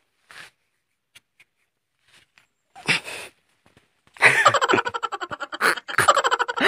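A man's voice: a short, sharp burst of breath about three seconds in, then rapid, loud laughter from about four seconds in.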